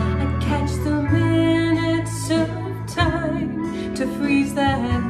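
Country song with guitar accompaniment, in a stretch between sung lines.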